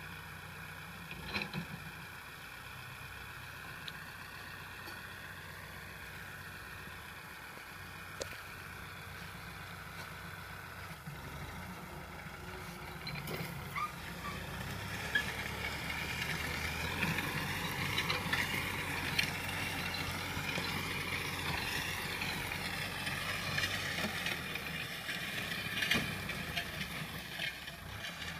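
Kubota farm tractor's diesel engine running steadily under load as it pulls a tillage implement through dry soil. The engine gets louder from about halfway, its note wavering up and down.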